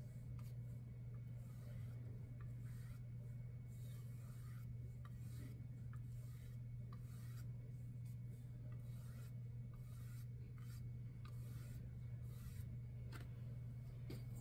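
Flat paintbrush stroking acrylic paint across a plaque, a run of soft, irregular rubbing swishes, over a steady low hum.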